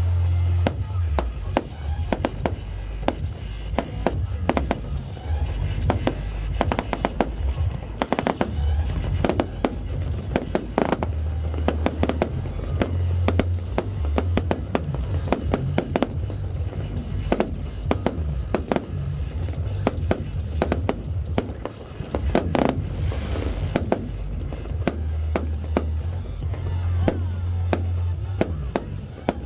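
Fireworks display: a dense, rapid run of bangs and crackling bursts, over loud music with a heavy bass beat.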